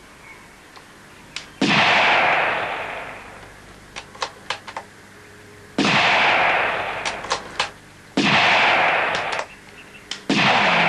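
Four rifle shots, each ringing out and fading over about two seconds, with short sharp clicks between them.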